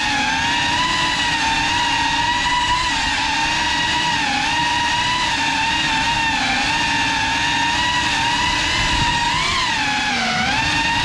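GEPRC Cinelog 35 cinewhoop's brushless motors and ducted propellers giving a steady high whine, its pitch wavering up and down with the throttle as it flies, rising briefly about nine seconds in and dipping near the end.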